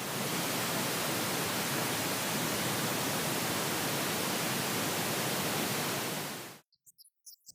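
Pink-noise speaker test signal: a steady, even hiss played through a loudspeaker channel, cutting off abruptly about six and a half seconds in.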